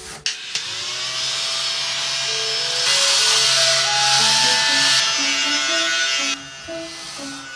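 A small electric motor spins up with a rising whine, then runs steadily with a loud hissing whir before cutting off about six seconds in, over light background music.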